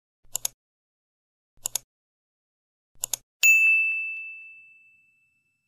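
Subscribe-button animation sound effects: three quick double mouse clicks about a second and a half apart, then a single bright notification-bell ding that rings out and fades.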